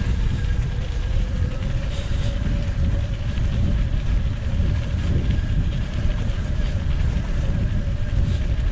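Strong headwind buffeting the microphone of a moving e-bike as a heavy, steady rumble. Under it runs a steady whine from the 250 W front hub motor working under pedal assist.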